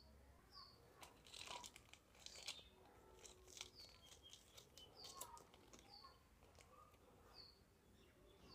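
Foil-lined plastic granola bar wrappers crinkling and tearing open in the hands, faintly, in a cluster of crackles over the first half or so. A bird chirps faintly in the background, with short high chirps about once a second.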